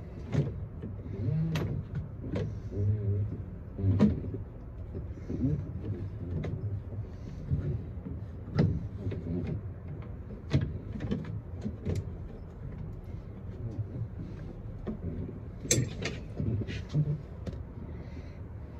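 Irregular sharp clicks and knocks of hand work on a Kawasaki Mule's plastic dashboard as its screws are loosened and it is pulled back, over low handling rumble.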